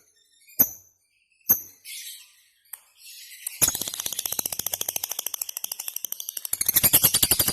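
Lovebird calling: a few sharp single chirps, then from about halfway a fast, unbroken chattering trill of about a dozen notes a second that grows louder near the end. This is the long continuous 'ngekek' song that keepers play as a lure to get other birds calling back.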